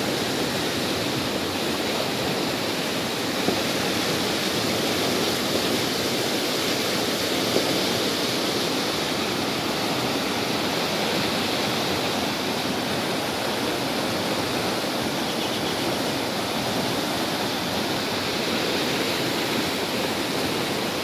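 Muddy rain runoff rushing fast down a narrow channel: a steady, even rush of water.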